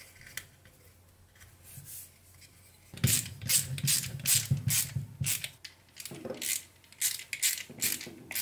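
Ratcheting screwdriver clicking as it turns long screws through a stepper motor into its 3D-printed mounting plate: a run of sharp clicks, about three a second, starting about three seconds in.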